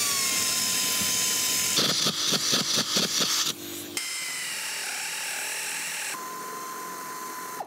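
Cordless power driver running bolts to fasten a truck seat: a steady whine, then a fast rhythmic rattle for about a second and a half, then after a short break another steady whine.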